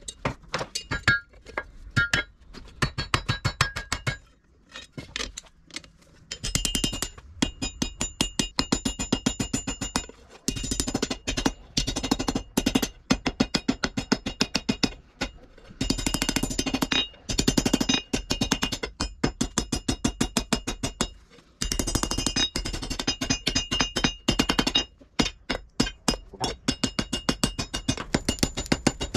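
Hand hammer striking hot car-spring steel on an anvil in fast runs of blows, several a second, each blow ringing with a bright metallic tone. The runs are broken by a few short pauses.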